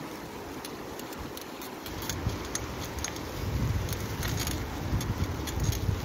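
Bicycle riding through fresh snow: tyres crunching and many small rattling clicks from the bike, with a low rumble that grows louder from about two seconds in.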